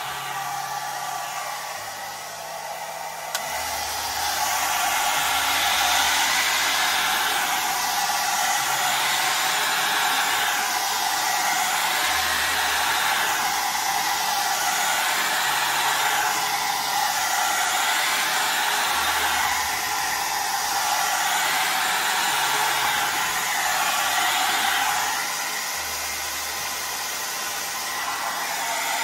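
Small handheld mini hair dryer running continuously, blowing wet acrylic paint outward across a canvas. Its steady hiss gets louder a few seconds in, then swells and fades about every two seconds.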